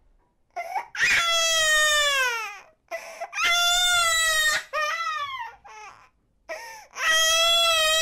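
An eight-month-old baby crying: three long wails of about a second and a half each, the first sliding down in pitch at its end, with short sobbing cries and brief pauses between them.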